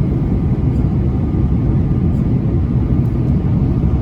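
Steady low rumble inside the cabin of an Airbus A330-300 in descent: airflow and its Rolls-Royce Trent 700 engines, heard from a window seat.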